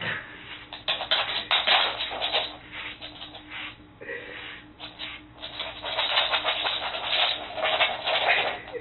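Dense scratching and rubbing in two long spells with a quieter gap between, as a dog jumps and scrabbles on a hardwood floor.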